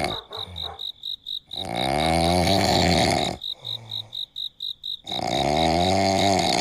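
A person snoring loudly in sleep: long rasping, wavering snores with choppy, fluttering breaths between them, one snore starting near two seconds in and another starting near five seconds in. A cricket chirps steadily behind, with high, even pulses about four a second.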